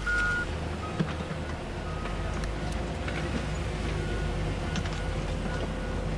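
Heavy construction-machine sound effect: a steady low engine rumble with short high warning beeps about once a second, and a sharp click about a second in.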